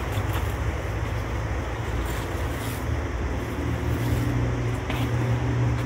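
Steady low rumble under a broad hiss, with a few faint ticks and a faint hum coming in about halfway through.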